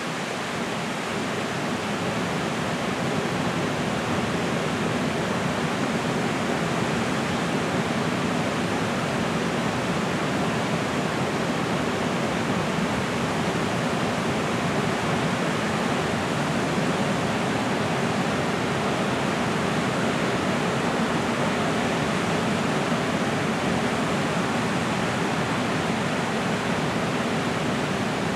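Creek water rushing in a steady, unbroken rush.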